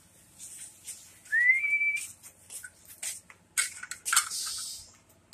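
A single whistled note that slides up and then holds for about two-thirds of a second, followed about two seconds later by a brief burst of rustling.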